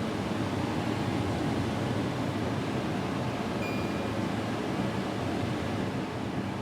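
LG air conditioner running, its fan blowing a steady rush of air.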